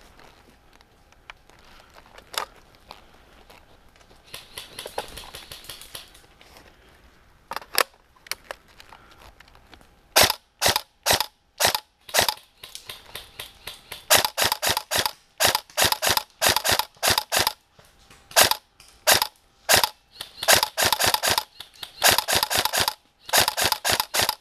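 Tokyo Marui SCAR airsoft electric rifle firing close by: a few faint shots at first, then from about ten seconds in, sharp single shots at two to three a second that run into quick strings with short pauses.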